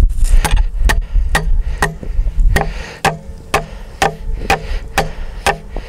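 Hammer blows driving a length of steel rebar through a wooden fence post: about a dozen steady strikes, roughly two a second, each with a short metallic ring.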